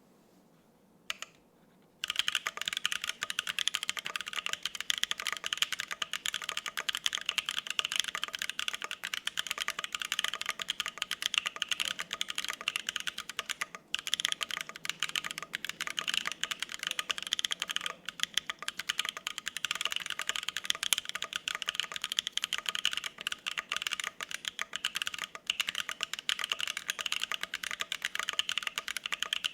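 Fast, continuous typing on a custom mechanical keyboard: a gasket-mount Bear 65% Ergo with lubed U4T tactile switches on an FR-4 plate, GMK double-shot ABS keycaps and no plate or case foam. A single keystroke about a second in, then steady rapid typing from about two seconds in, with a brief pause midway.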